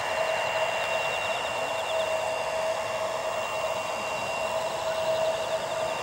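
Boeing 737-800's CFM56-7B turbofans on landing approach: a steady jet whine and hiss with two held notes, one high and one lower.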